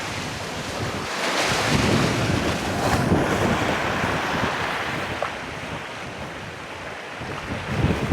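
Ocean surf washing ashore in a steady rush, swelling about a second in and easing off toward the end, with wind buffeting the microphone.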